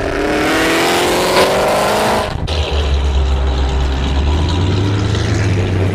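Dodge Charger Hellcat's supercharged V8, tuned to about 1100 hp, accelerating with its pitch climbing for about two seconds. After a sudden cut it gives way to a steady deep exhaust rumble as the car pulls away.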